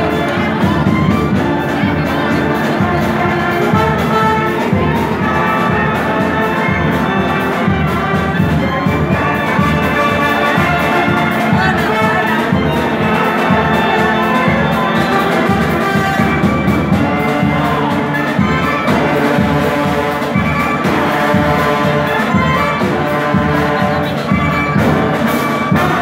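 A brass band (filarmônica) playing live: trumpets and trombones carrying the tune over a steady drum beat.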